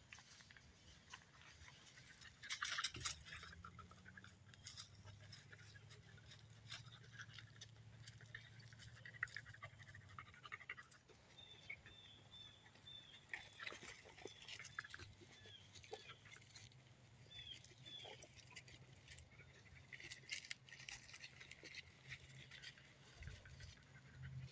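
Quiet woodland ground: footsteps and rustling through grass and undergrowth, loudest in a short stretch a few seconds in, with scattered small twig and leaf clicks. About halfway through comes a run of short, high chirps, a couple a second.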